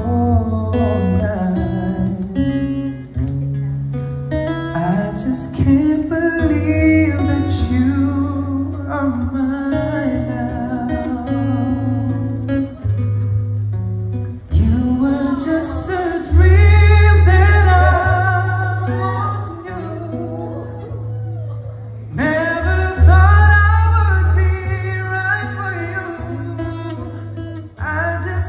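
A male vocalist singing a slow ballad into a microphone, accompanied by a strummed acoustic guitar, both amplified through a PA speaker.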